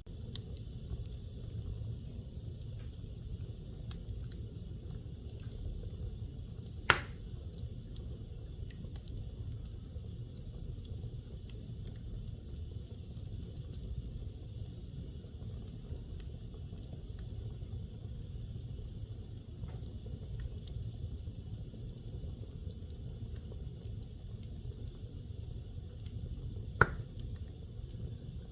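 Wood fire burning in a fireplace: a steady low rumble with faint crackling, and two sharp pops, one about a quarter of the way in and one near the end.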